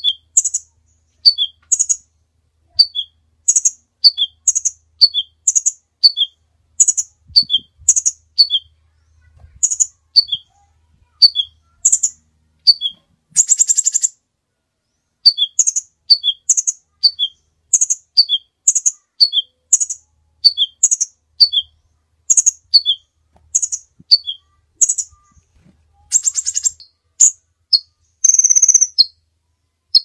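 Crimson sunbird calling: a sharp two-note call, a high note followed by a lower one, repeated over and over about once a second. The run is broken twice by a short buzzy rattle, about halfway through and again near the end.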